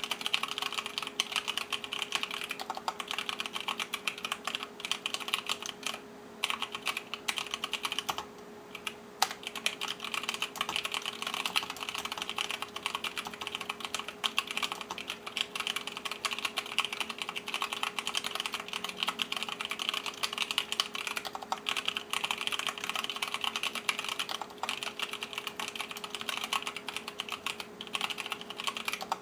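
Continuous fast typing on an mStone Groove mechanical keyboard with Cherry MX Clear switches fitted with 65 g springs: a dense run of keystroke clicks, with a brief pause about eight seconds in.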